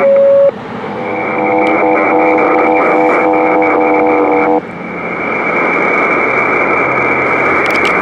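Receiver audio from a 23 cm amateur radio setup between transmissions. A single steady whistle lasts about half a second, then a cluster of several steady whistling tones sounds over hiss until about four and a half seconds in, then only static hiss remains.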